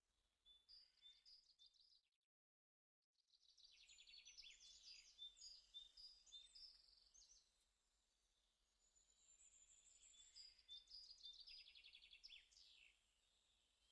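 Faint songbirds chirping and trilling in quick, repeated phrases. The sound cuts out completely for about a second, two seconds in.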